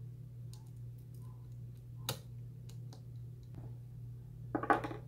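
Small clicks and taps from handling parts and a screwdriver inside an opened laptop, with a sharp click about two seconds in and a louder short clatter near the end, over a steady low hum.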